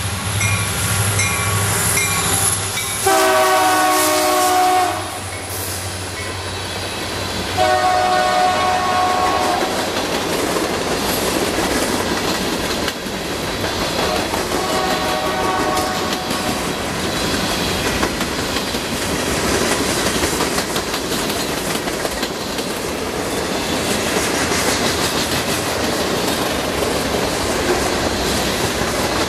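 Two Union Pacific EMD SD70M diesel locomotives pass with the engines running and sound the horn in three long blasts. The freight cars behind them then roll past with a steady rattle and clickety-clack of wheels over the rail joints.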